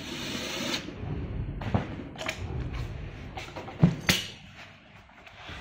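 A cordless drill runs briefly, driving a screw into the barber chair's chrome base plate. Then come several sharp knocks and clunks of metal chair parts being handled, the loudest two close together about four seconds in.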